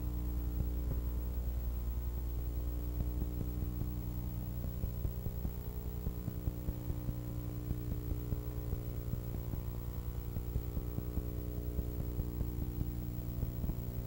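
Steady electrical mains hum with a buzzy stack of overtones and light crackling clicks: the noise of an old film transfer whose sound track holds no recorded sound.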